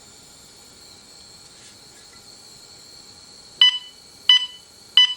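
RV propane gas detector's alarm sounding, three short high-pitched beeps about two-thirds of a second apart starting a few seconds in: it has sensed propane in the air.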